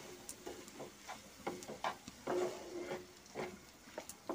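Wooden spatula scraping and stirring in a nonstick frying pan, mixing grated paneer into a cooked onion-tomato masala, in quick, irregular strokes about three a second.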